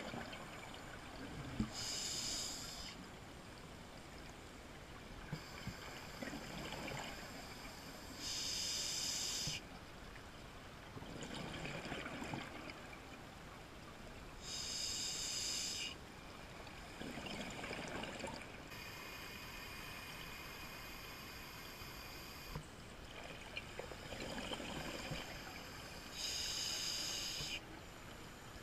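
Scuba breathing heard underwater through a diver's regulator: a slow cycle, about every six seconds, of a hissing inhalation through the demand valve alternating with a lower rush of exhaled bubbles.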